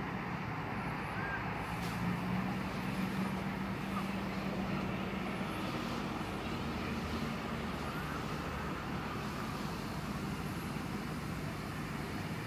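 Distant road traffic: a steady hum of engines, with a low droning tone through the first half.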